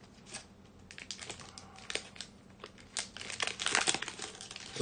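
A foil trading-card booster pack crinkling and cards being handled as the pack is opened. The sound is a run of quick, irregular crackles and ticks, thickest about three to four seconds in.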